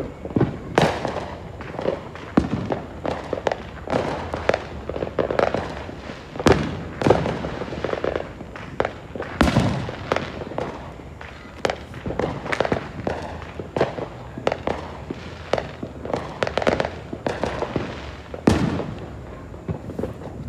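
Fireworks and firecrackers going off all around in a continuous, irregular barrage of bangs and pops, several a second, each trailing off in echoes, with a few heavier booms about halfway through and again near the end.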